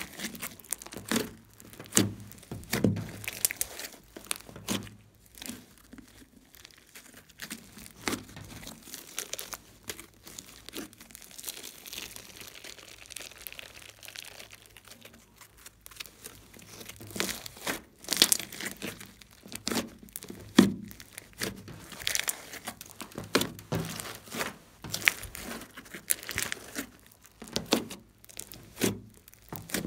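A large lump of slime being pressed and kneaded by hand, its trapped air pockets popping and crackling in irregular bursts, quieter for several seconds in the middle.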